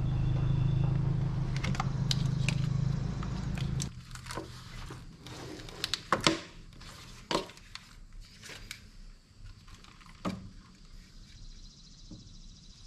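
A steady low hum runs for about four seconds and then cuts off abruptly. After it come scattered sharp clicks and clinks of metal hand tools and parts being handled in a car's engine bay.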